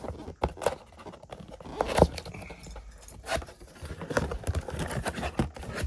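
Hands opening a cardboard product box: scattered clicks, taps and scraping, with one sharper knock about two seconds in.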